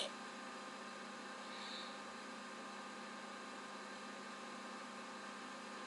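Steady electrical hum of many fixed tones over a faint hiss, with a brief faint high-pitched sound about a second and a half in.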